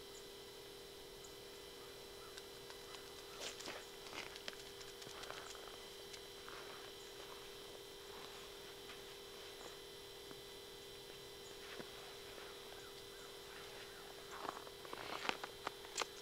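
Faint scattered crunches and clicks of movement on snowy ice, a few about three to five seconds in and a quicker run near the end, over a steady faint electronic hum.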